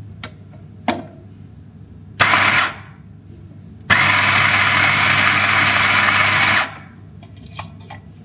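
Electric burr coffee grinder grinding beans into an espresso portafilter: a short half-second burst about two seconds in, then a steady run of nearly three seconds that stops abruptly. A light click comes about a second in.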